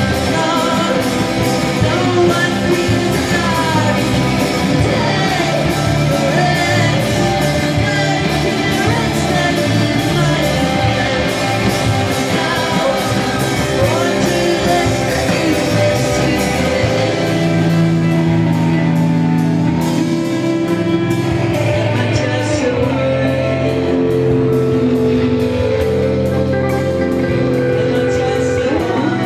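Indie rock band playing live: electric guitars, bass guitar, keyboard and drum kit, with a sung vocal line. About halfway through, the singing gives way to long held chords over the drums.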